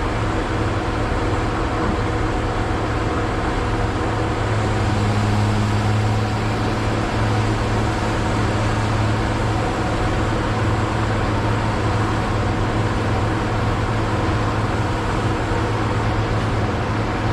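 Heavy logging machine's engine running steadily, a continuous low drone; a second, higher steady hum joins it about four and a half seconds in.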